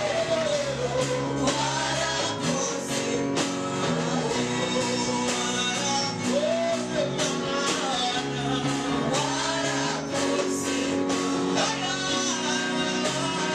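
Live gospel worship song: a male lead singer and backing vocalists singing through microphones over an amplified band with a steady beat.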